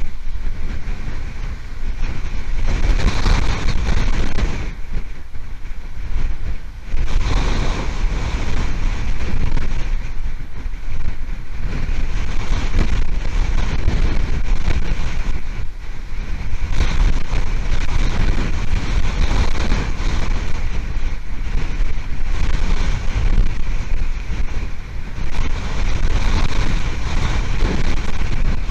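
Hurricane winds buffeting an outdoor nest-cam microphone: a loud, continuous rushing and rumbling that swells and eases in gusts, with a short lull a few seconds in.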